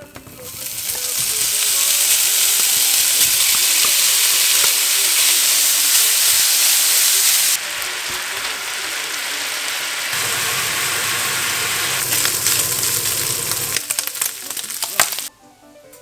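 Diced bacon sizzling loudly as it fries in a hot nonstick pan, stirred with a wooden spatula. The sizzle builds within the first second as the pieces hit the pan, drops in level about halfway through, and stops abruptly near the end.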